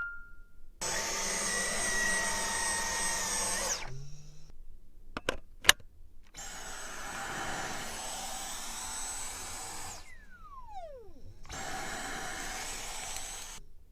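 Dyson vacuum cleaner motor running in three short stretches, each a steady rushing hiss with a high whine, starting and stopping abruptly. Two sharp clicks come a little after five seconds, and a falling whine about ten seconds in sounds like the motor spinning down.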